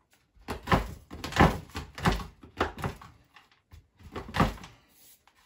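Large kitchen knife chopping white chocolate on a wooden chopping board: a run of irregular, uneven thuds as the blade strikes through the chocolate into the board.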